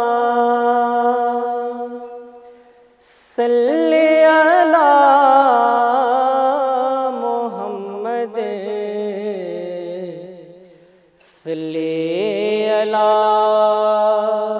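A man singing a Pashto naat (a devotional poem in praise of the Prophet) unaccompanied, in long, slow, ornamented phrases. The voice breaks off for a breath about three seconds in and again about eleven seconds in.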